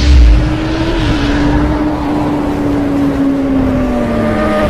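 Motorcycle engine sound effect: a low boom at the start, then a steady engine note over a hissing rush, its pitch slowly dropping toward the end.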